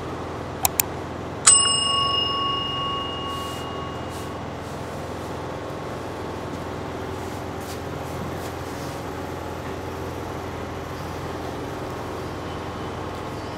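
Two quick clicks, then a bright bell ding about a second and a half in that rings out and fades over a couple of seconds, the sound effect of a subscribe-button animation. A steady background hum runs under it.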